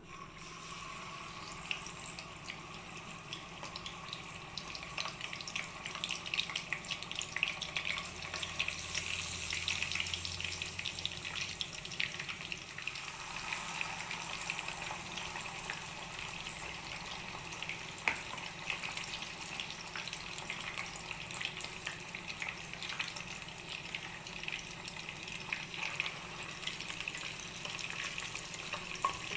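Food sizzling in hot oil in a pan, with steady crackling and popping.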